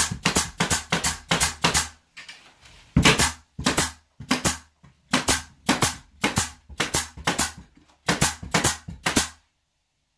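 Pneumatic nail gun firing repeatedly into wooden wall boards, in quick runs of sharp shots a fraction of a second apart; the shots stop about a second before the end.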